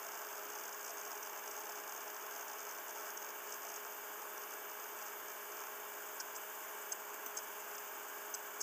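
Steady microphone hiss with a faint low electrical hum: background room tone. A few faint, short clicks come in the last couple of seconds.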